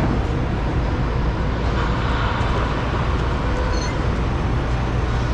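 A running engine's steady low rumble under a broad hiss, with no strokes or breaks.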